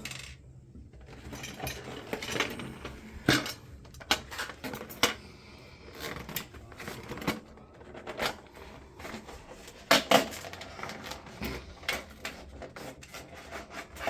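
Irregular metallic clinks and knocks of hand tools and small metal parts being handled, with sharper strikes about three, five, eight and ten seconds in.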